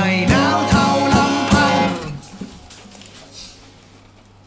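A man singing over strummed acoustic guitars. The music stops about two seconds in, leaving a quiet pause.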